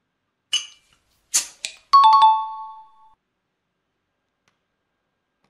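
Crown cap being pried off a glass bottle with a homemade PVC-pipe-and-bolt opener: a few sharp clicks and a short pop as the cap gives. About two seconds in comes a ringing metallic clatter of several quick clicks that fades over about a second.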